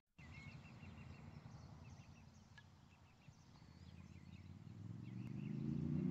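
Faint outdoor ambience: small birds chirping in the distance over a low rumble, which swells steadily over the last second or so.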